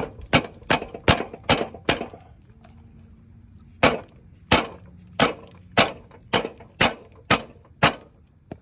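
Sharp knocks, about two a second: a run of about six, a pause of nearly two seconds, then about eight more, as the filed-out replacement lawn mower wheel is knocked onto its axle.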